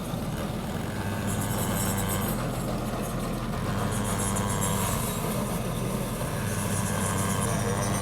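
An engine running steadily with a low hum, its note shifting slightly about two seconds in and again about five seconds in.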